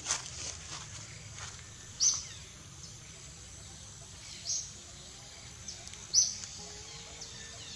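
A bird giving short, high chirps, one every two seconds or so, over a steady outdoor background, with a sharp click at the very start.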